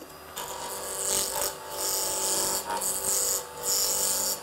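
Turning chisel roughing down a wooden pen blank spun at high speed on a pen lathe: several hissing cuts in a row, each about a second long with short breaks between, over the steady whine of the lathe's 375 W brush motor.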